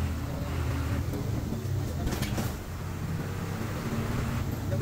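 Hino bus diesel engine running steadily under way, heard from inside the cabin at the front, with road and cabin noise and a brief hissing burst about two seconds in.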